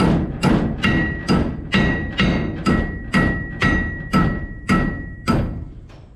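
Hammer blows on steel, driving a roll pin in: about a dozen steady strikes, roughly two a second, each with a short metallic ring, stopping a little after five seconds.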